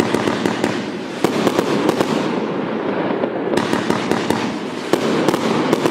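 Multi-shot fireworks cake (bombarda) firing: continuous crackling with quick runs of sharp pops in the first two seconds and again in the last two, as shells launch on sparkling tails.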